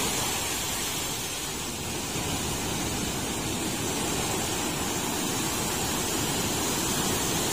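Steady rush of sea surf, waves breaking and washing on the shore in rough post-typhoon seas.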